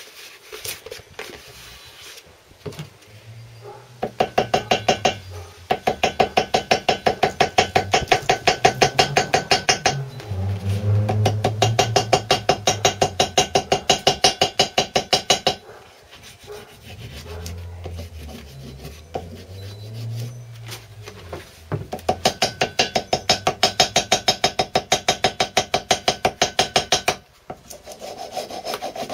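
Ball peen hammer tapping rapidly through gasket paper against the metal edge of the engine cylinder, cutting out the centre hole of a new paper cylinder gasket. The taps come in long runs of about five a second, each with a short metallic ring, broken by a few pauses.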